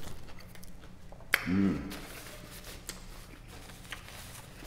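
Close mouth sounds of a man chewing a steak-and-cheese sub: small wet clicks and smacks. A sharper smack comes about a second and a half in, followed by a brief hum of his voice.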